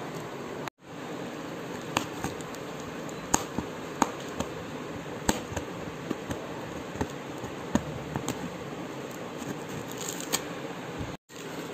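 Cardboard shipping box being torn open by hand: packing tape and cardboard ripping and crackling in scattered sharp clicks over a steady background hiss. The sound cuts out briefly twice.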